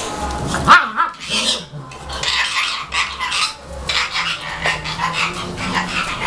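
German Shepherd puppy and its mother play-fighting: one sharp bark about a second in, then scuffling and low growls.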